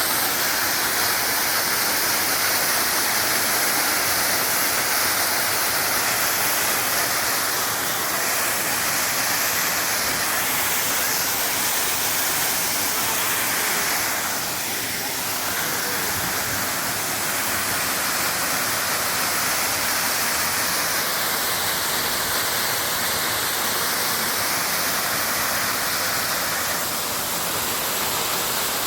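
Mountain waterfall pouring steadily: a loud, even rush of falling water.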